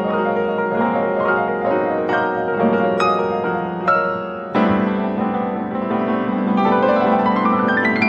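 Grand piano played solo, full chords ringing over a held low note. About halfway a new chord is struck, then a quick run of notes climbs upward near the end.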